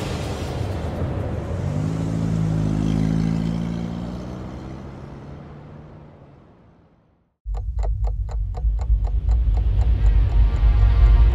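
Score music and sound design: a noisy, droning cue with low held tones fades out over several seconds to a brief silence. A new commercial cue then starts abruptly with a deep bass rumble under a steady clock-like ticking, about four ticks a second.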